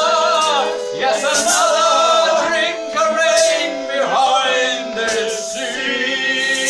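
Live song: a man singing over an electric keyboard playing sustained chords.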